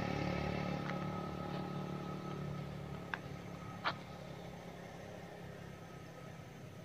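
Motor vehicle engine humming and fading steadily away, with two short sharp clicks about three and four seconds in.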